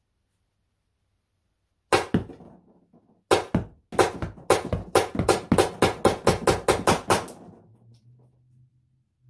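Pepperball VKS compressed-air launcher firing about twenty quick shots, with the pepperball rounds smacking into a cardboard box target. A pair of shots comes about two seconds in and another pair a second later, then a steady run of about four shots a second that stops after about seven seconds.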